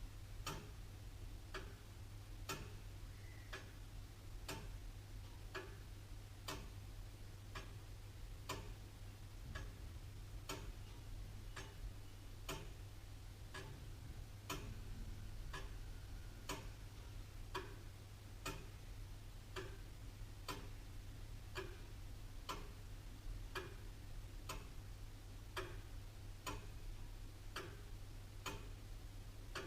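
Antique William Holliwell of Liverpool clock ticking steadily, its escapement giving evenly spaced sharp ticks.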